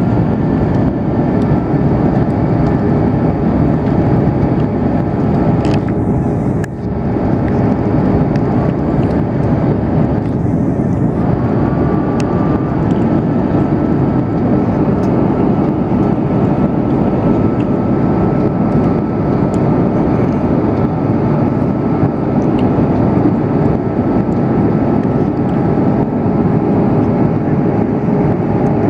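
Airbus A330's jet engines heard from inside the passenger cabin during the climb after takeoff: a steady, loud rumble with a faint steady whine above it.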